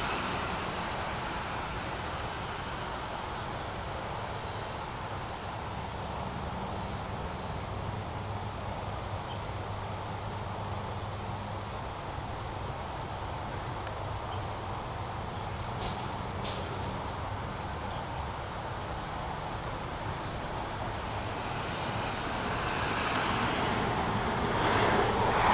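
A cricket chirping outdoors, a regular series of short high chirps about two a second that stops near the end, over a low steady hum.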